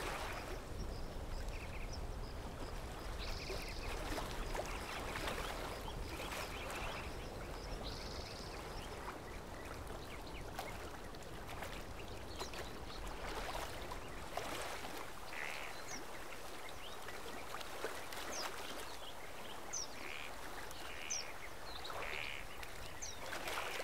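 Quiet outdoor background with scattered short, faint animal calls.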